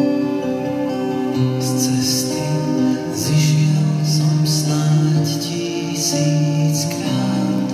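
Slow, gentle live music: an acoustic guitar over held, sustained tones and shifting low notes. From about a second and a half in, short bright strums come in at a steady pace.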